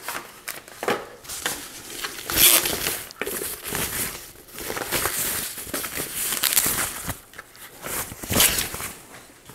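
Packaging crinkling and rustling as a small kitchen appliance is lifted out of its box and unwrapped, in irregular bursts, the loudest about two and a half seconds in and near the end.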